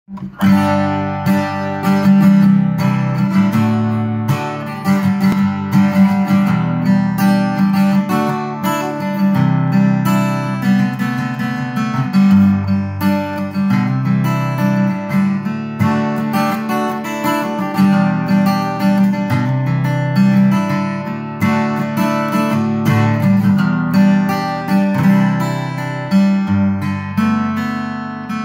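Tokai Cat's Eyes CE-250 dreadnought acoustic guitar, with a spruce top and rosewood back and sides, played fingerstyle. It mixes picked notes with strummed chords in a steady, continuous passage.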